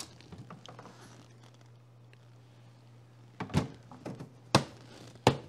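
Plastic latches on a Wilderness Systems kayak crate being snapped shut by hand: three sharp clicks about a second apart in the second half, after quiet handling of the box.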